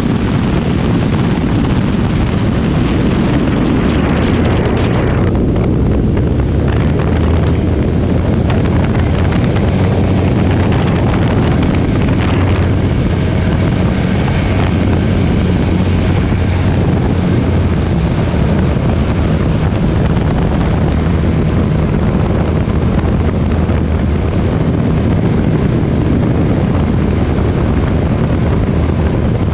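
Light propeller aircraft's engine droning steadily, with wind noise on the microphone, as heard on board.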